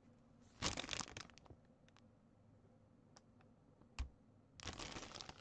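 Crinkly packaging of a cross stitch kit being handled, in two short bursts about a second in and near the end, with a single sharp click between them.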